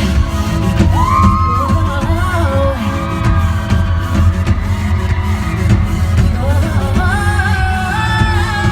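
Live pop music: a heavy bass-driven backing track with female vocals singing gliding, held runs over it, the highest notes held near the end.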